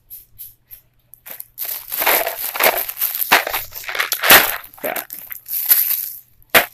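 Plastic shopping bag and snack packaging crinkling and rustling as they are handled. The rustling comes in dense, irregular bursts starting about a second in, with one sharp crackle near the end.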